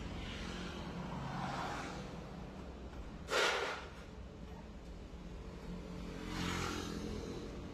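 A motor vehicle engine running steadily, with a short loud whoosh about three seconds in and a softer swell near the end.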